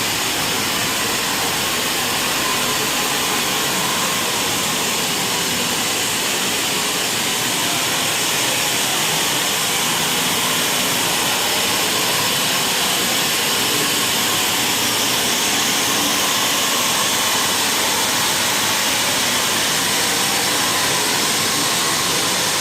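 WNS horizontal fire-tube gas steam boiler running: a loud, steady rushing noise that holds unchanged throughout.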